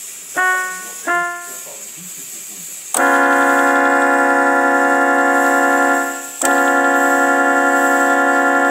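Union Pacific 8444's Hancock three-chime steam whistle sounding its chord: two short toots, then a loud long blast about 3 s in that breaks off after a few seconds and starts straight into a second long blast. Each blast begins abruptly.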